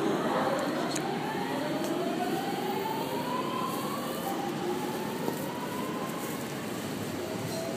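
JR 209 series 500 electric commuter train pulling away from the platform. Its inverter and traction motors whine in several rising tones as it picks up speed, over the rumble of wheels on rail.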